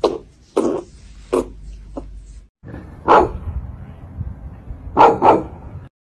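Shar-pei puppy barking: one bark about three seconds in, then a quick double bark about two seconds later. Before them comes a run of short, evenly spaced sounds, about one every two-thirds of a second.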